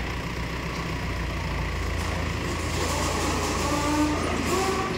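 Diesel engine of heavy machinery running steadily with a low, even hum, with faint wavering higher tones over it in the second half.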